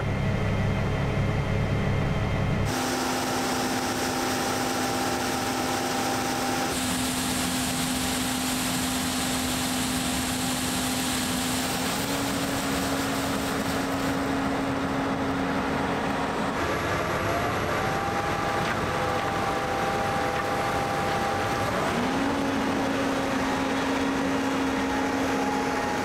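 John Deere tractor engine running steadily while its grain cart's auger unloads shelled corn into a semi trailer. The engine hum rises in pitch twice in the second half.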